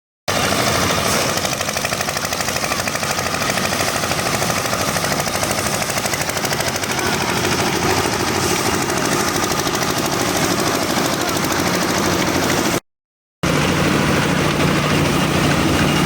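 A paddy rice processing machine running at full tilt, a loud, dense, rapid rattling clatter. Near the end it cuts out and gives way to a steadier, lower engine hum.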